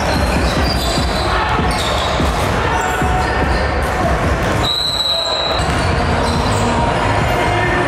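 Background music with a heavy, steady bass, with a basketball bouncing on a hardwood court. About five seconds in, the music drops out for just under a second, leaving a steady high tone.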